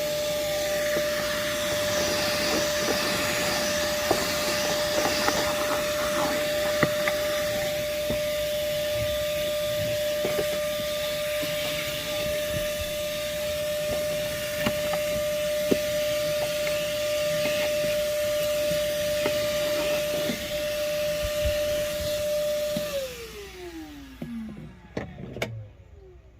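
Moosoo 18 V cordless shop vacuum running with a steady whine and scattered clicks and knocks as it picks up debris. Near the end it is switched off and the motor winds down with a falling whine.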